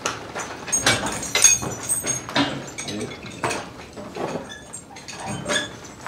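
Metal harness chains clinking and rattling in a run of sharp clinks as a team of draft horses is hitched to a forecart.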